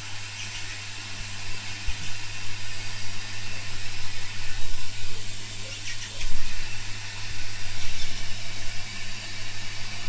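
Front-loading washing machine running through a wash, its drum tumbling the laundry: a steady low hum under a swishing noise that swells and fades, with a few faint clicks.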